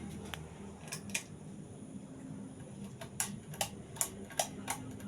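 Uchida Arctic decorative ceiling fan running with a steady low motor hum, and a series of sharp, irregular clicks that come faster in the second half.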